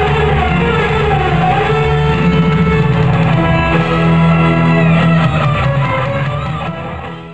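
Live symphonic rock played loud, with electric guitar and violin, fading down near the end.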